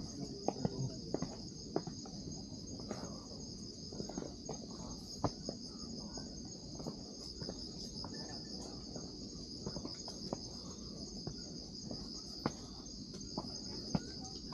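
Night insects singing in a steady, shrill chorus, with irregular footsteps and small knocks on a hiking trail beneath it.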